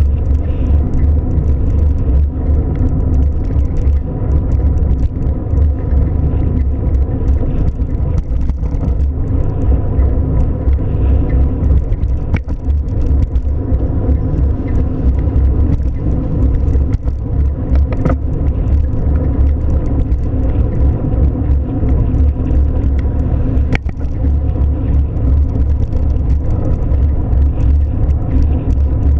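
Steady low rumble of a car running or driving, unbroken throughout, with three short clicks spread through it.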